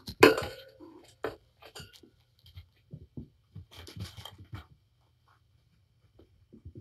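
Cats playing on a sisal cat tree and pee pads: scattered scratches, paw pats and ticks, with a loud sharp sound just after the start and another about a second later. The scratching dies away a little past the middle.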